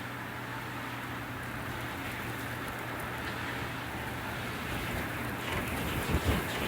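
Winter wind blowing outside a window: a steady rushing hiss over a faint low hum, swelling into a stronger gust with a low buffet near the end.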